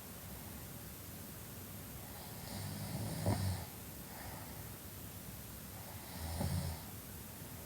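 A young woman snoring in her sleep: two snores about three seconds apart, each about a second long, with a softer breath between them.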